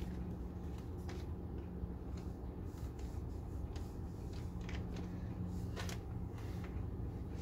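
Crinkling and rustling of a woven plastic sack and scraping of soil as hands firm potting soil around a seedling planted in it: a few short, scattered crackles over a steady low hum.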